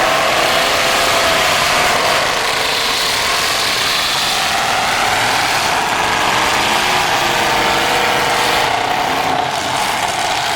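Demolition derby cars' engines running together, their pitch rising and falling as they rev.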